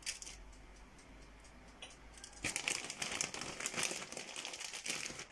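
Plastic bag of grated cheese crinkling as it is handled and shaken to sprinkle the cheese, faint at first and much louder from about halfway in.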